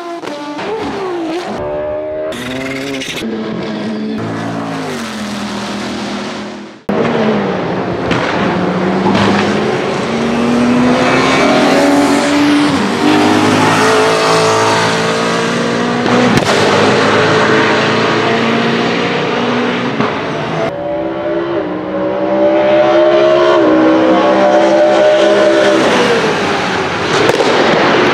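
BMW E87 140i GTR race car's S65 V8 engine at high revs on track, pitch climbing through the gears and dropping back at each shift, over several passes.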